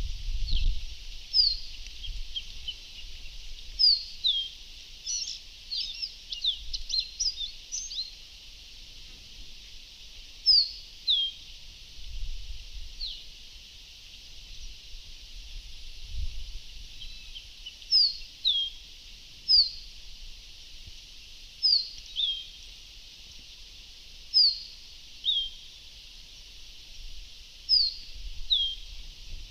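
Caboclinho-coroado (a Brazilian seedeater) calling: short, high, thin down-slurred notes, often in pairs, repeated every second or two, with a quick jumble of notes about five to eight seconds in, over a steady high hiss.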